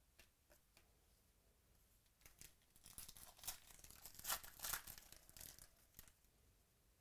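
Foil trading-card pack wrapper being torn open and crinkled by hand. The crackling tearing starts about two seconds in, is loudest in the middle and dies away near the end, after a few faint clicks of cards being handled at the start.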